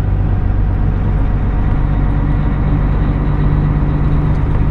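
Tractor-trailer truck's diesel engine running steadily, heard inside the cab as a constant low hum with road noise.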